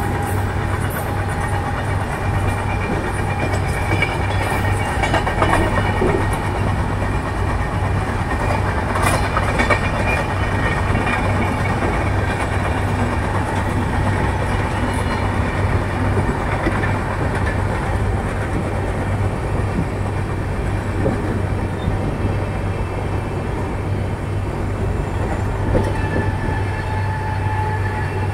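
Steady rumble of trains running on the rails, with scattered clicks of wheels, heard from inside a coach window as an express train runs on the next track.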